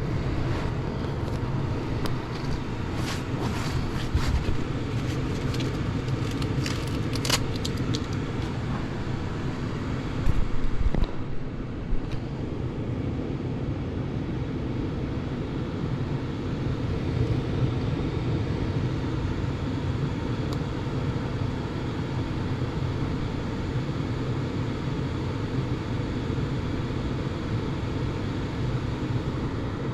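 Gas furnace firing up on a test run after its flame sensor was repositioned into the flame: a steady low rumbling run, with scattered clicks in the first several seconds and a louder burst about ten seconds in.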